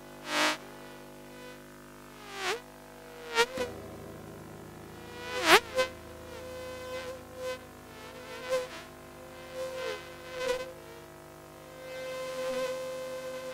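Electric toothbrush buzzing, layered into a bee-like swarm: a steady many-toned drone with several buzzes swooping down and back up in pitch as if flying past, the loudest about five and a half seconds in. A lower hum joins at about three and a half seconds.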